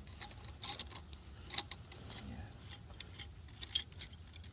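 Faint, irregular light clicks and taps, about seven or eight scattered through, over a steady low rumble.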